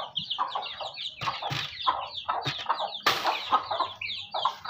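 Hens clucking and chicks peeping: quick, high, falling peeps come several times a second over lower clucks. A brief harsh noisy burst about three seconds in is the loudest moment.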